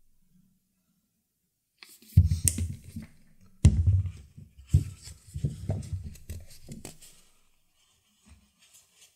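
Close handling sounds on a workbench: a squeeze bottle laying a bead of glue along a leather-wrapped stick, then a paper towel being handled, with dull knocks and rustling. The sounds start about two seconds in, include one sharp knock midway, and stop about seven seconds in.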